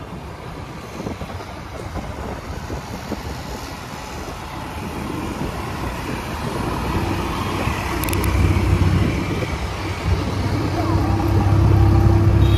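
Road and wind noise from riding a scooter through highway traffic, with an engine drone that grows louder in the second half.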